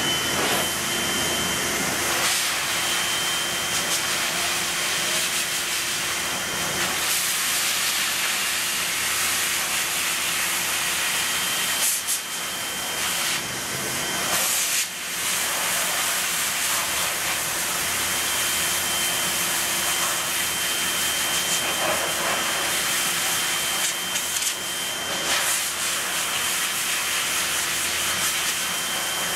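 Laube Magnum Force high-velocity pet dryer blowing steadily through its hose and nozzle while drying a dog's coat: a constant rush of air with a steady high motor whine. The airflow briefly dips twice near the middle.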